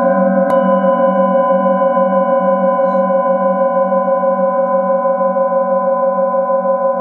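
Metal singing bowls ringing together in long sustained tones, the lowest tone pulsing with a slow waver. The hand-held bowl is struck lightly with a wooden mallet about half a second in, adding a fresh bright ring.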